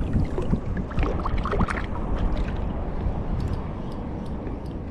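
Shallow sea water lapping and sloshing right at the microphone, with low wind rumble; a few faint sharp ticks in the second half.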